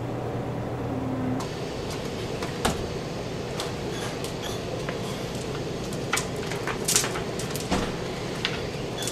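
Steady background hiss with a scattered series of light, sharp clicks and knocks, about half a dozen, starting after the first second and a half.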